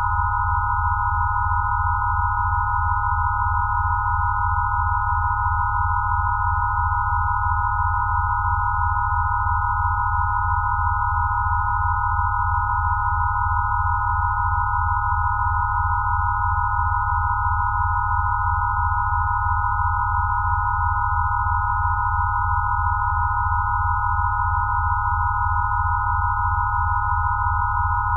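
Electronically generated healing-frequency tones: several steady pure sine tones close together in pitch, one much louder than the rest, over a low hum that throbs rapidly, all held unchanging.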